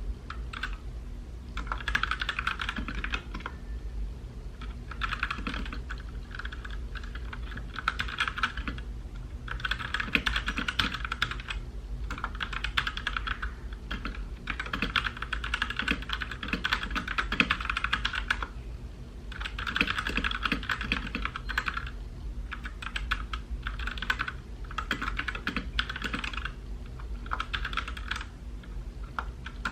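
Typing on a mechanical keyboard: fast runs of key clicks lasting a second or few, broken by short pauses.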